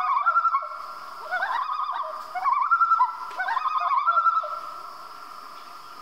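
Common loon giving its wavering tremolo call in about four bursts, then fading away after about four and a half seconds.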